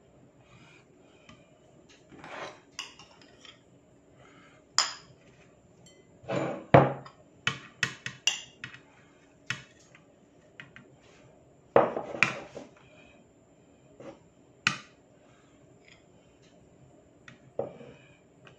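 Metal cutlery clinking and scraping against a ceramic bowl and plate as cooked rice is scooped out and served. The clinks and knocks come irregularly, the loudest a little after six seconds and again around twelve seconds.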